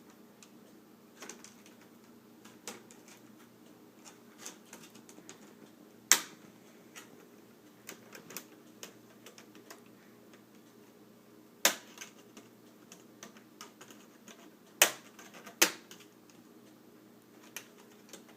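Plastic clips of a laptop screen bezel snapping loose as a small flathead screwdriver pries the bezel off, with light irregular clicks and scrapes between four sharp, loud snaps, two of them close together near the end.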